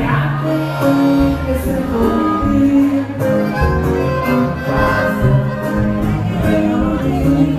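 A recorded song in an instrumental passage: violins play over a bass line that steps from note to note.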